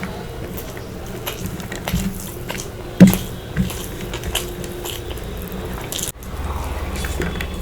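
Close-miked eating: a person biting and chewing food, with scattered small mouth clicks and one loud sharp bite about three seconds in.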